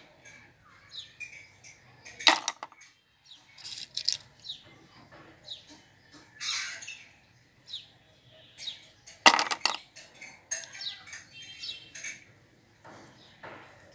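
Small hard-plastic toy pieces handled over a plastic basket: a string of light clicks, taps and rustles, with two sharper clicks about two seconds in and just after nine seconds in.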